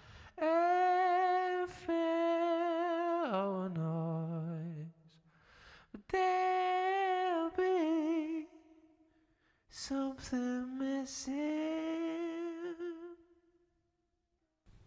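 A lone woman's voice singing a slow, unaccompanied melody in long held notes with vibrato, in four phrases with short breaks between them. It stops shortly before the end.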